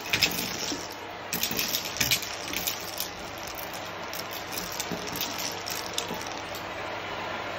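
Canister vacuum cleaner running with a steady rush of suction through its metal wand, small hard debris crackling and rattling up the tube in quick clicks for the first few seconds. The clicks thin out as the pile on the rug is cleared, leaving mostly the suction.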